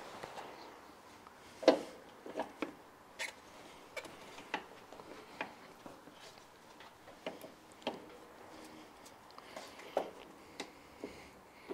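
Irregular light knocks and clicks as a SIP Performance rear shock absorber is worked up into its upper mounting hole on a Vespa GTS 300, the strongest knock about two seconds in.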